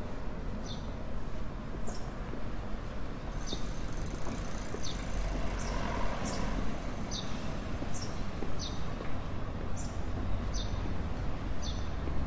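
A small bird chirps repeatedly, about once a second, over a steady low rumble of city traffic.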